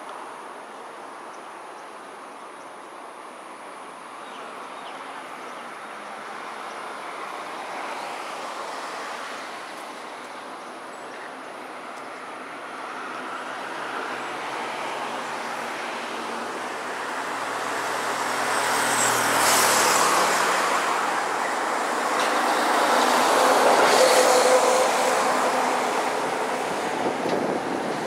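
Passing vehicle noise: a steady rushing hum that swells and fades, loudest twice in the second half as vehicles go by.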